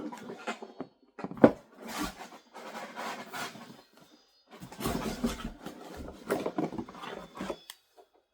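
Paper and cardboard packaging being handled and rustled in irregular bursts, with one sharp knock about a second and a half in.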